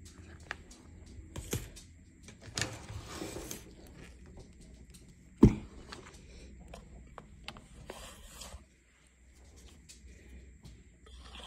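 Hands crumbling and rubbing dry gym chalk and cornstarch chunks with glitter: scattered small crackles and short gritty rustles, with one heavy thump about five seconds in. It is quieter near the end.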